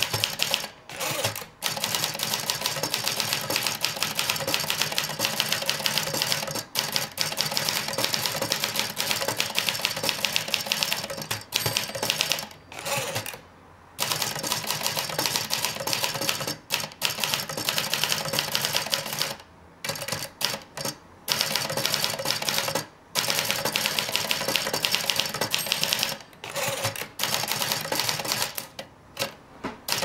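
Everest K2 manual portable typewriter (Jolson-branded) being typed on fast: a rapid, continuous stream of key and typebar clacks, broken by a few short pauses.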